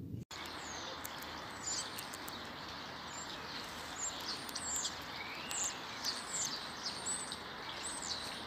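Small wild birds chirping, many short high calls and quick glides over a steady background of outdoor noise.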